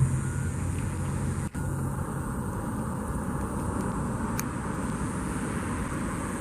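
Steady car noise, an engine running under a constant hiss, with a momentary dropout about a second and a half in.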